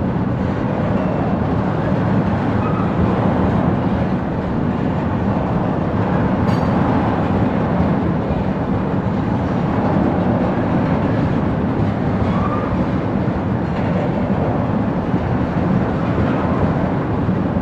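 Railroad tank cars of a freight oil train rolling past, with a steady rumble and rolling noise of steel wheels on rail.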